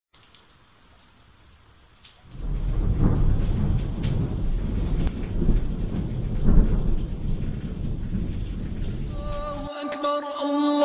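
Thunderstorm sound effect: rain hiss, then a loud, rolling thunder rumble from about two seconds in that cuts off abruptly near the end. As it ends, a single voice begins chanting in long, wavering held notes.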